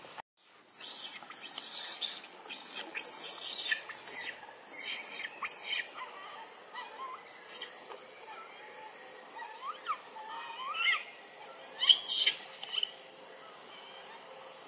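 Outdoor animal sounds in the trees. For the first several seconds there is dense scratchy rustling, then a few short high squeaks and chirps that rise and fall in pitch, the sharpest about twelve seconds in, over a faint steady high whine.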